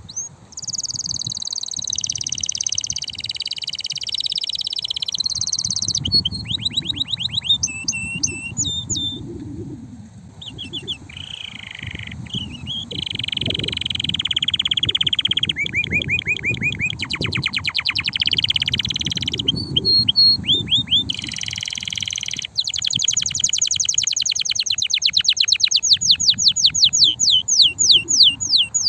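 Male canary singing continuously in changing phrases: buzzy rolls, fast trills of repeated notes and quick rising and falling note runs. It ends in a long trill that speeds up and gets louder.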